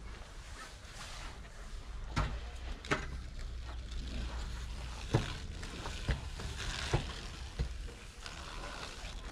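Masons working wet cement mortar on a wall top: scattered short taps and scrapes of tools and hands on the mortar, about one a second in places, over a low steady rumble.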